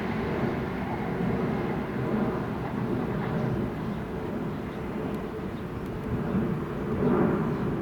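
Train rolling along the line: a steady low rumble that swells briefly about two seconds in and again near the end.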